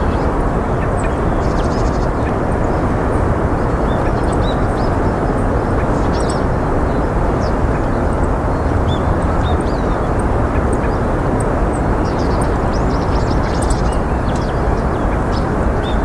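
A loud, steady outdoor rumble throughout, with many short, high bird chirps scattered over it, several clustering near the end.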